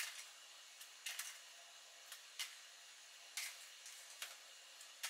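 Faint handling sounds of thawed bananas being picked out of a plastic tray by hand: a handful of soft, separate taps and clicks over a steady low hiss.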